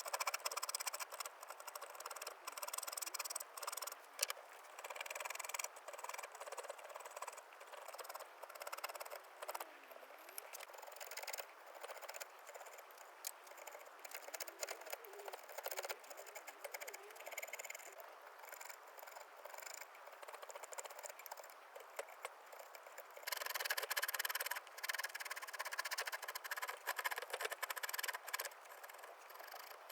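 Hand carving tools working cherry wood: irregular scraping, shaving cuts and small clicks of the blade, denser and louder for the last several seconds.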